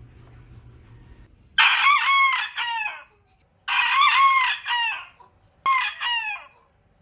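Modern Game rooster crowing loudly three times in a row. The third crow is the shortest.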